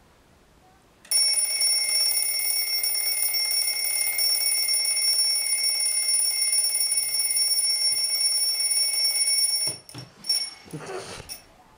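Twin-bell alarm clock ringing steadily and loudly for about eight and a half seconds. It then cuts off as it is grabbed, with a few short knocks and rattles as it is handled.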